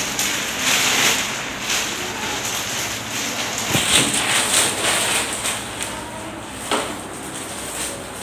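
Rustling and crackling of protective equipment being handled and disposable gloves being pulled on, with two brief knocks a few seconds apart.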